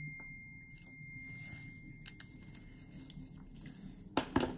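Quiet handling of a pigment bottle and microblading tools on a tabletop. A clear ringing tone left by a small metal clink fades out over the first two seconds, followed by faint rustles and small clicks, then two sharp knocks about four seconds in.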